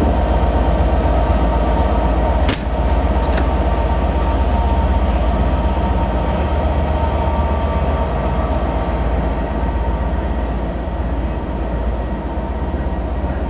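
Class 67 diesel-hauled Pullman train pulling away: steady low engine and wheel rumble that slowly fades as the train draws off, with a single sharp click about two and a half seconds in.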